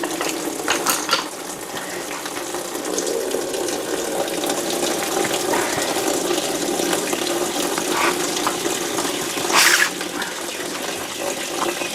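Petrol gushing steadily out of a Triumph TR7's fuel tank through the hole of the fuel gauge sender unit, which has been taken out with fuel still in the tank. A brief sharp clatter about ten seconds in.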